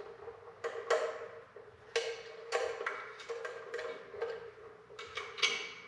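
A run of sharp metallic clinks and taps, uneven and several a second, each ringing briefly: small tools and parts being handled and knocked against metal while wiring connections are worked on.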